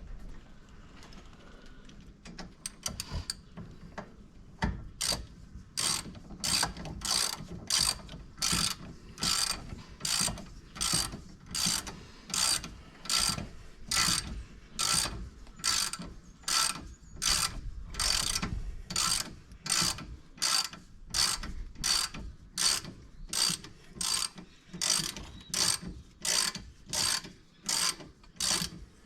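Hand ratchet wrench run down on a rear brake caliper bolt, clicking in a short burst on each swing. A few scattered clicks come first, then a steady rhythm of nearly two strokes a second from about five seconds in.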